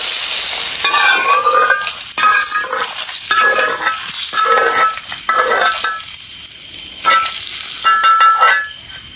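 Metal spoon scraping oil out of a pan in about seven short strokes, each with a thin squeak. The strokes come steadily for the first six seconds, then twice more near the end.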